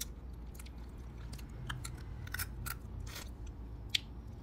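Close eating sounds from steamed ba khía crab: a string of sharp cracks and crackles as the shell of the legs is bitten and pried apart by hand, with chewing in between. The sharpest crack comes near the end.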